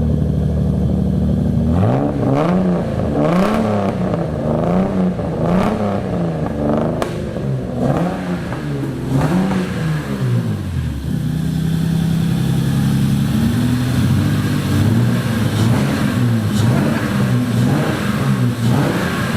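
Toyota Supra 2JZ straight-six running just after its first start: idling, then blipped over and over, the revs rising and falling about once a second, settling back to idle about halfway, then blipped again near the end. It has a dead miss at idle from cylinder one.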